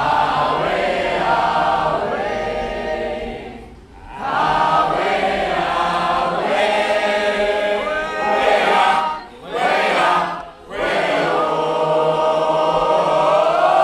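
A group of voices singing a slow song together in harmony. The chords are held long, with a short break about four seconds in and two quick breaks near ten seconds.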